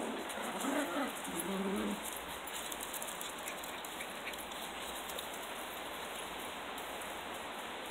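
Sealyham Terriers giving a few short whines and yelps in the first two seconds, then a steady hiss of outdoor background noise.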